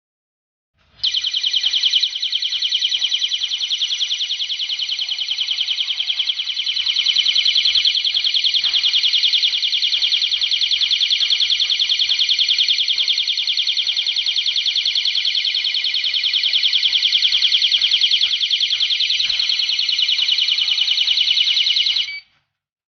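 Siren of a wireless GSM home alarm system sounding: a loud, high-pitched electronic tone with a fast warble. It starts about a second in and cuts off suddenly near the end.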